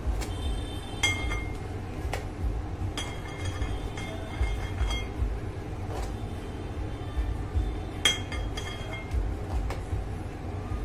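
Cake-decorating turntable rumbling steadily as it is turned, with short metallic clinks that ring briefly several times as the frosting spatula knocks against the stand.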